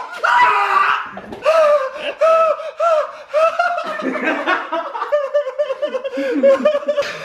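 A man yells loudly in pain as a wax strip is torn off his chest, then hearty laughter follows in quick, repeated 'ha' bursts.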